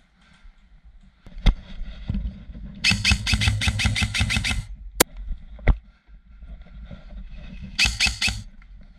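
Airsoft guns firing: a few single shots, then a rapid full-auto burst of about a second and a half near the middle and a shorter burst near the end.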